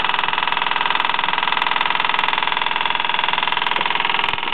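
Mamod ME3 model steam engine running steadily with a rapid, even beat as it turns the propeller shaft through its coupling and universal joint, running smoothly.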